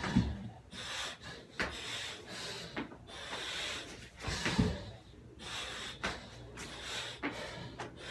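Hard, rapid breathing from exertion during burpees: noisy, gasping breaths one after another. There is a heavy thud twice, about four and a half seconds apart, each time the body drops to the gym floor.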